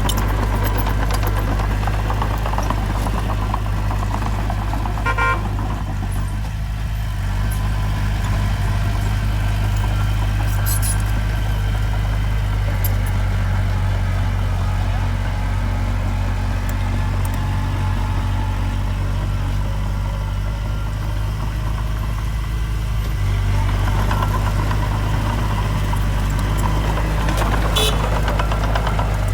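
Heavy earthmoving machine's diesel engine running steadily, its low hum growing a little louder in the last few seconds.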